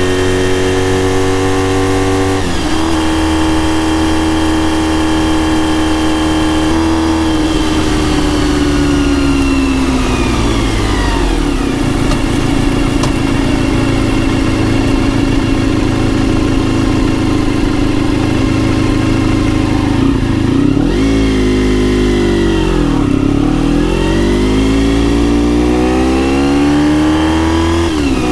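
Honda RVF400 (NC35) 360°-crank V4 with gear-driven cams and a TSR slip-on silencer, running under way as picked up by a microphone inside the seat. The engine holds a steady pitch, falls away as it rolls off and slows from about eight seconds in, runs low for a while, then rises again as it accelerates in the last few seconds.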